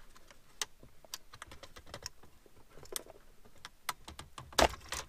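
Small plastic clicks and rattles as the ashtray light's wiring connector is unplugged and the plastic console trim of a 1999 Subaru Forester is handled, with a louder knock a little before the end.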